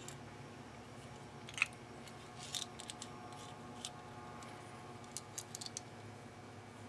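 Scattered light clicks and small handling noises as hands work with spark plug wires and a marker, the sharpest click about a second and a half in, over a faint steady hum.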